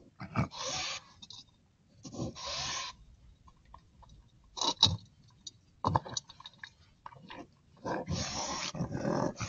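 Raccoons fighting: harsh hissing and growling in four bursts, the last and longest near the end, with a few sharp knocks and scuffs in between.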